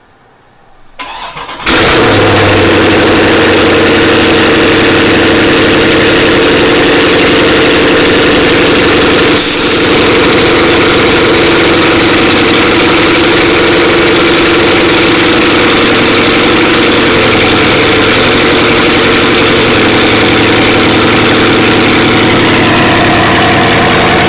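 Dodge Charger Scat Pack's 392 HEMI V8, with a CORSA Extreme exhaust and catless Stainless Works mid-pipes, cold-started after sitting about a week. A short crank about a second in, then it fires pretty damn loud and settles into a steady idle.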